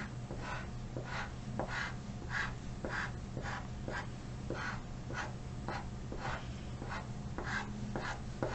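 Chalk pastel scratching across black paper in quick short strokes, about two a second, each stroke often starting with a light tick as the stick touches down.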